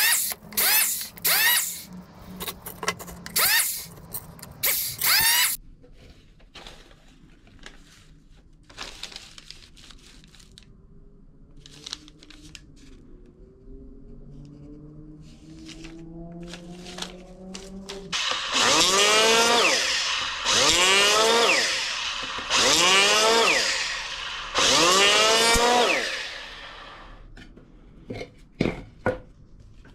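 Hand saw cutting a wooden board. A run of about six quick strokes comes first, then a few knocks, then five long, loud strokes, each with a ringing tone from the blade.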